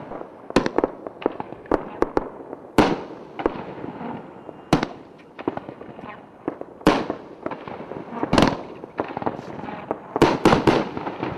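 A 500-gram aerial repeater cake firing 3-inch shells. Loud booming reports come roughly every two seconds, with a quick cluster of several near the end and smaller pops and crackles between them.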